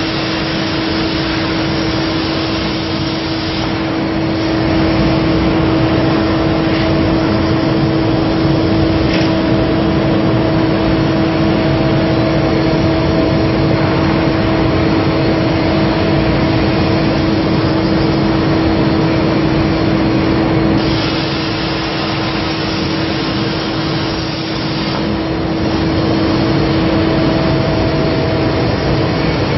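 Plasma cutting torch on a CNC gantry cutter, fed by a Hypertherm plasma power source, cutting steel plate: a loud, continuous hiss with a steady hum underneath. The sound dips a little for a few seconds about two-thirds of the way through.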